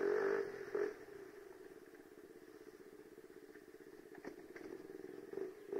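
KTM RC sport bike's single-cylinder engine and exhaust running at low riding speed. It is louder for the first half-second, then settles to a steady low note with a few faint clicks.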